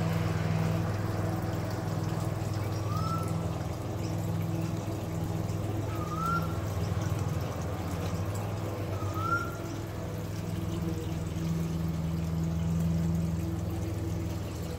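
Steady trickling, pouring water-like noise over a low hum. Over it, a short rising whistle sounds three times, about three seconds apart.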